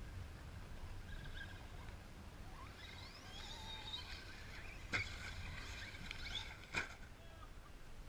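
Distant Traxxas radio-controlled truck, its motor whining up in pitch as it accelerates toward a jump, followed by two sharp knocks a little under two seconds apart as it lands. Wind rumble on the microphone throughout.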